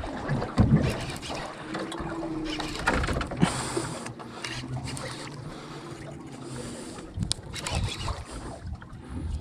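Water splashing and irregular knocks and clatter beside a small fishing boat as a hooked trevally is brought to the landing net.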